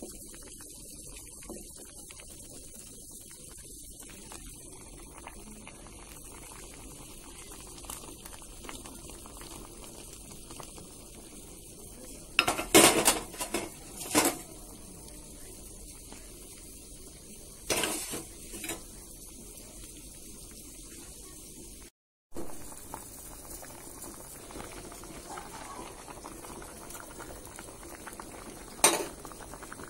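Stainless steel pot of broth bubbling steadily at the boil, with a few loud clattering knocks in two clusters around the middle and once more near the end. The sound drops out briefly about two-thirds through.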